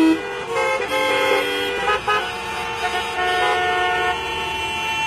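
Many car horns honking at once, overlapping steady blasts of different pitches starting and stopping, with a short loud blast at the start.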